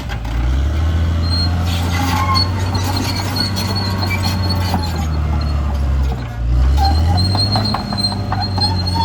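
Caterpillar D6R XL crawler bulldozer working: its diesel engine running steadily under load, with the squeal and clank of the steel tracks. The engine sound dips briefly about six seconds in, and a run of clanks follows near the end.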